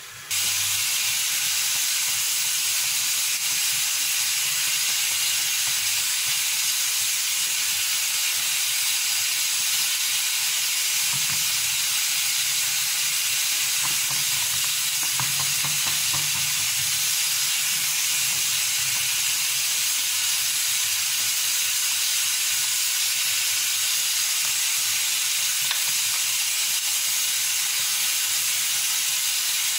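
A steady, even hiss that switches on abruptly and holds one level throughout, with no speech.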